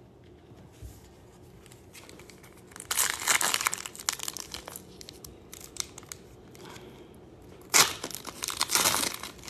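A Panini Prizm baseball bonus-pack wrapper being torn open and crinkled by hand. It comes in rustling spells: one about three seconds in and a louder one near the end.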